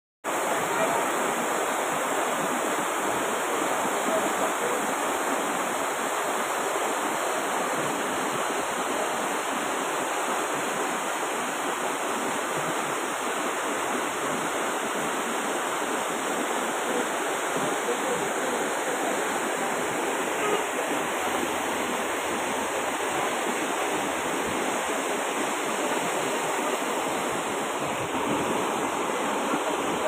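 Muddy floodwater rushing in a torrent down a street, a steady, unbroken rush of fast-moving water.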